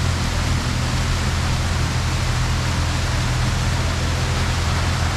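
Steady rush of falling water from a waterfall, with the low, even hum of a Jeep engine idling underneath.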